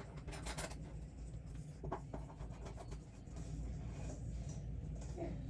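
Light scraping and rustling of hands handling a lamp and its bulb, with a few small clicks, over a low steady hum.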